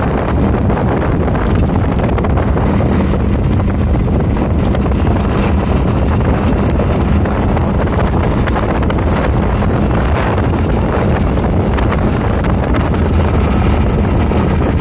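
Wind buffeting the microphone over a steady engine hum from a moving vehicle.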